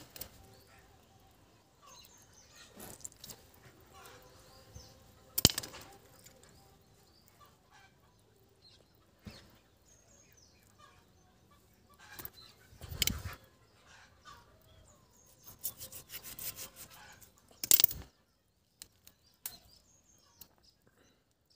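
Scattered clicks, taps and short rustling bursts from hands working a raw chicken gizzard, peeling off its tough inner lining; the loudest bursts come about halfway through and again near the end, with quiet between.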